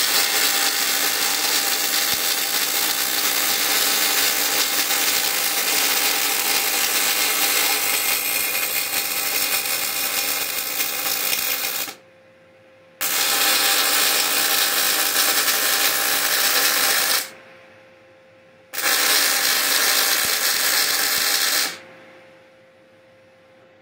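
Electric arc welding on steel bodywork. A steady arc noise comes in three runs: a long one of about twelve seconds, then two shorter ones of about four and three seconds, each starting and stopping abruptly.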